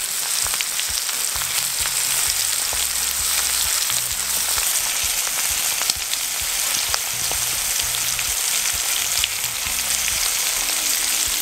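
Crayfish frying in oil in a cast-iron skillet over a wood fire: a steady sizzle with many small pops and crackles.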